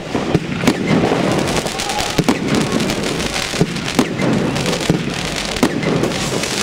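Fireworks going off: about ten sharp bangs at uneven intervals over a continuous crackling hiss, as a firework battery fires shots that rise with sparkling tails and burst into gold crackling stars.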